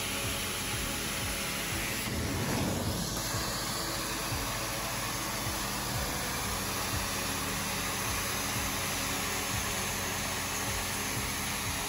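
Hot-water-extraction carpet cleaning wand drawing air and water out of the carpet: a steady suction hiss with the extraction machine's hum underneath.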